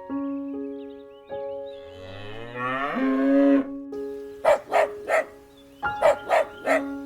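A cow mooing once, a long call that rises in pitch, over background music with held notes. Near the end come two short clusters of quick, sharp calls.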